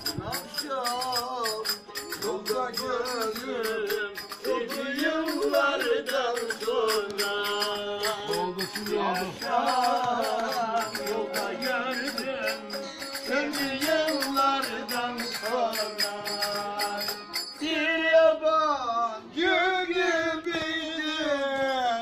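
A man singing a Turkish folk song in an ornamented, gliding style, accompanied by a bağlama (saz) strummed in quick strokes.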